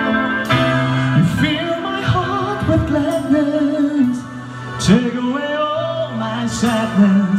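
A man singing a love song live into a microphone over instrumental backing, holding long notes and sliding between pitches.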